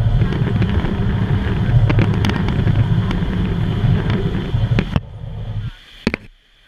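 Wind buffeting a GoPro's microphone on a moving boat: a loud, uneven low rumble with a few sharp clicks, dropping away sharply near the end.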